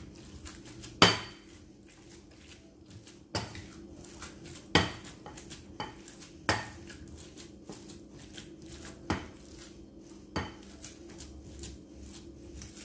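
An ulekan pestle mashing tofu in a glass bowl: irregular sharp knocks and clinks as it strikes the glass, about six louder knocks with the loudest about a second in, between softer scraping clicks.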